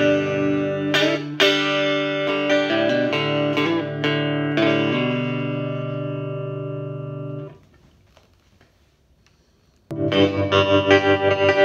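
Electric guitar played through a freshly repaired 1960s silverface Fender Vibro Champ tube amp: picked chords, the last one left ringing and fading, then cut off about seven and a half seconds in. After about two seconds of near quiet, playing starts again with the volume pulsing evenly a few times a second.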